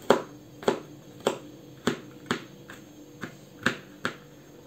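Kitchen knife chopping garlic cloves finely on a plastic cutting board: about nine sharp taps of the blade on the board, roughly two a second, stopping shortly before the end.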